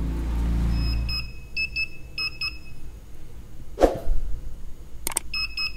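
Multimeter continuity tester giving short high beeps in broken clusters as the probes touch the pins of an iPhone XS Max's sensor flex cable. The beeping shows the pins are shorted together, the water-damage short behind the phone's boot loop. A single sharp click comes near the middle.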